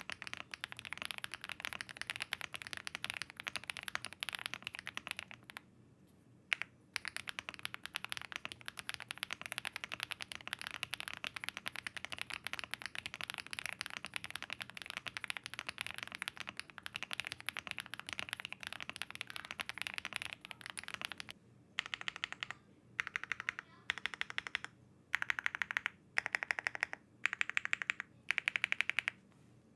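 Furycube F75 mechanical keyboard (HMX Lemon Grape linear switches, stock double-shot PBT keycaps, polycarbonate plate, foam-filled aluminum case) being typed on quickly and continuously, with a brief pause about six seconds in. From about twenty seconds in, the typing changes to short bursts of rapid keystrokes with short silences between them.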